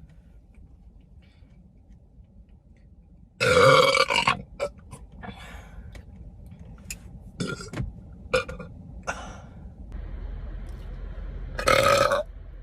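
A girl burping loudly: one long burp about three and a half seconds in, short sounds after it, and another loud burp near the end.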